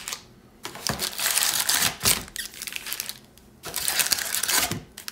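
Foil-wrapped baseball card jumbo packs rustling and crinkling as they are handled and moved, with light clicks and taps. The sound comes in stretches with short pauses between.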